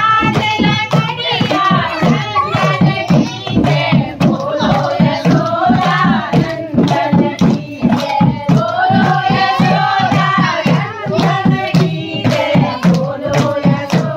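Women singing a Kumaoni Holi folk song to hand clapping and dholak beats, with a steady beat of about three strokes a second.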